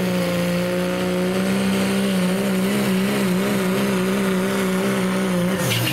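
Turbocharged diesel pickup engine held at full throttle under heavy load while pulling a sled. Its pitch is steady, then wavers, then drops sharply near the end as the engine comes off its pull.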